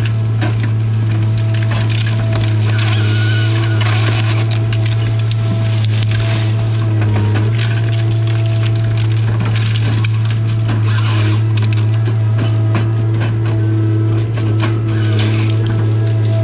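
Tigercat 855C harvester's engine running in a steady low drone, heard from inside the cab. Frequent sharp cracks and snaps come over it as small hardwood stems and branches break in the LogMax 7000 harvester head.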